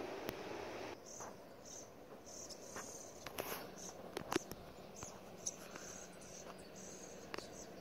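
Insects chirping: short, high chirps repeating irregularly, with a few sharp clicks among them. A steady rushing noise fills the first second and then drops away.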